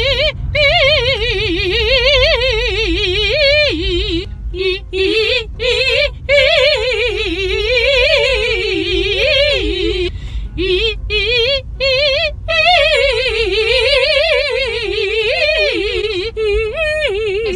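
A woman's operatic voice sings agility exercises: quick runs up and down the scale with wide vibrato, in three phrases. A low car-cabin hum runs underneath.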